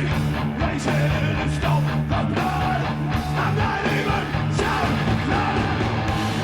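Rock band playing loud, dense guitar-driven rock with pounding drums and a yelled vocal.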